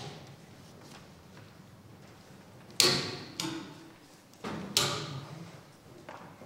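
Knocks and clunks of percussion equipment being handled and shifted on stage: a sharp knock about three seconds in, a lighter one half a second later and another near five seconds, each ringing briefly in the hall.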